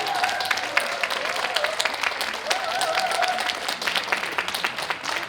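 Audience applauding, a dense patter of hand claps, with a few voices calling out over it.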